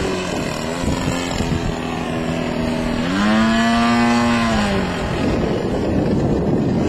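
DLE 55 single-cylinder two-stroke gas engine and propeller of an RC aerobatic biplane in flight. It runs steady, then revs up sharply about three seconds in and eases back down a second and a half later.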